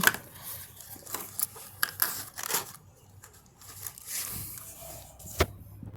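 Cardboard trading-card hobby box being opened and handled, with paper-like rustling, scraping and light taps, and one sharp tap near the end.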